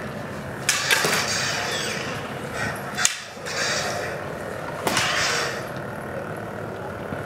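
Lightsaber blades clacking together in sparring: a few sharp, separate hits about a second in, near three seconds and near five seconds.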